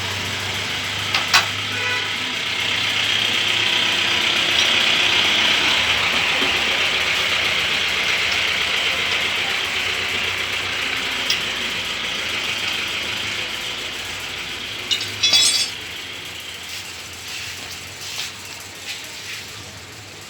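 Steady mechanical whir that swells over the first few seconds and slowly fades, over a low hum, with a sharp metallic click about a second in and a quick cluster of clicks near fifteen seconds.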